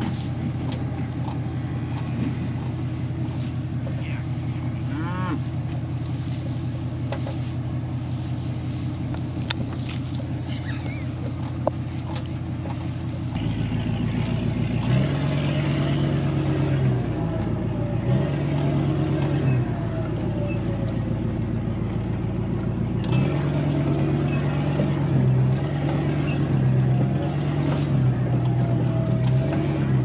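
Tractor engine running steadily. About 13 seconds in it takes on load as the bale processor starts shredding a round bale of hay, and the engine note surges in pulses under a wavering whine from the spinning rotor.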